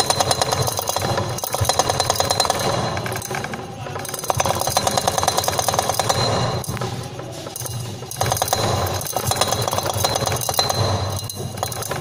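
LG BMG089NAMV refrigerator compressor running with a rapid metallic rattling and shaking that surges louder and softer every couple of seconds. This is an abnormal rattle from the compressor of an LG GL-M292RLTL fridge.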